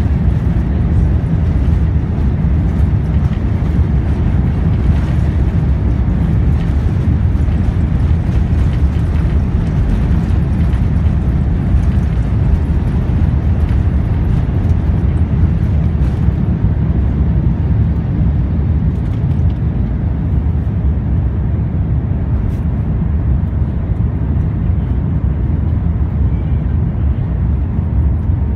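Jet airliner at take-off thrust heard from inside the cabin: a loud, steady, deep engine noise with rumbling and rattling from the runway roll. The rattling dies away about halfway through as the wheels leave the ground, leaving the smoother steady sound of the engines in the climb.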